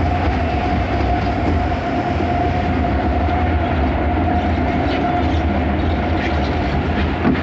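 Log flume lift conveyor carrying the boat uphill. It gives a steady low mechanical rumble with a constant whine and a faint clatter.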